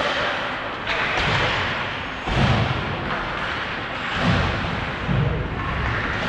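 Hockey game play: a few dull thuds over steady rink noise.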